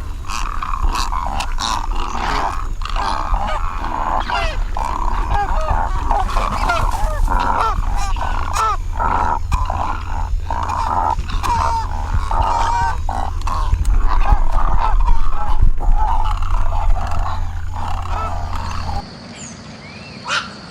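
Many animals calling at once: a dense chorus of overlapping rough calls. A steady low rumble runs underneath and stops near the end.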